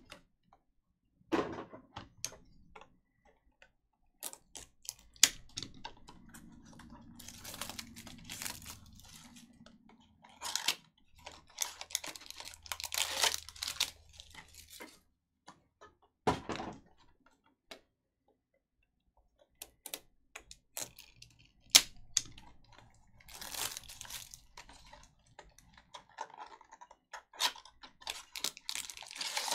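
Trading-card boxes and their plastic and foil wrappings being handled and opened by hand: irregular cardboard clicks and taps mixed with short crinkles of plastic.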